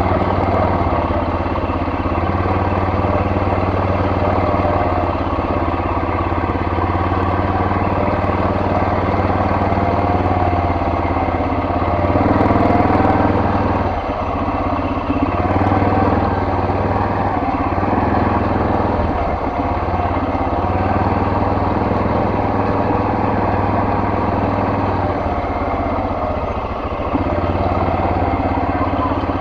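ATV (four-wheeler) engine running steadily at low trail speed, its level and pitch swelling briefly a couple of times near the middle as the throttle is opened.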